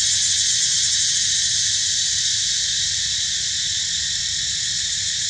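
Insects shrilling in a dense, steady, high-pitched chorus, with a faint low rumble underneath.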